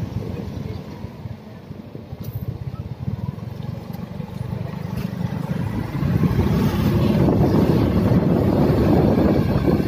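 Yamaha motor scooter's engine and road noise while riding: quieter as it slows in the first few seconds, then louder from about six seconds in as it picks up speed again.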